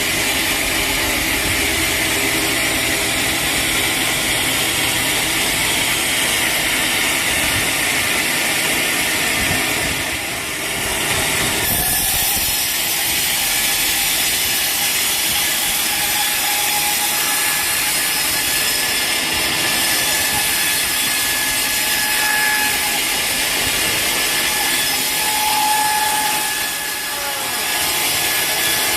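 Sawmill saw cutting through a teak log: a steady, dense cutting noise, easing briefly twice.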